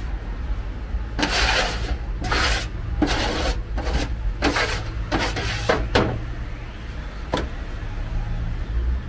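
Metal spatula scraping chopped döner meat across a steel grill tray: a run of about eight quick scrapes over some five seconds, then a single tap.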